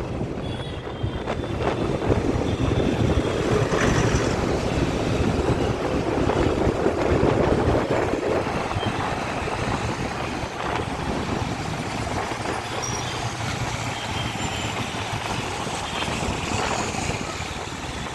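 Steady rumble of road traffic and vehicle engines, louder for the first few seconds and then settling.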